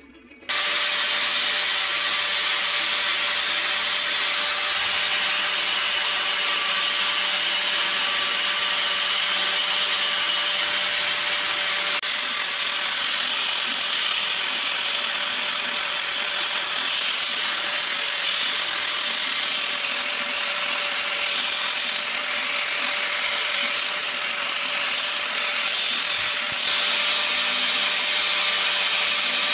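A small electric sanding machine starts about half a second in and runs steadily with a high motor whine, used to shape a small wooden pendant.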